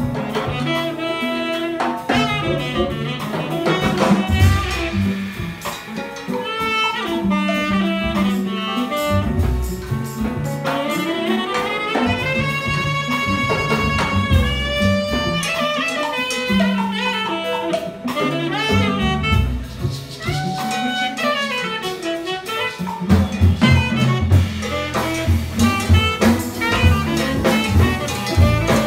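Live small-group jazz: tenor saxophone playing a melodic line over upright bass, piano, drums and hand percussion. About three-quarters of the way through, the band gets louder and busier in the low end.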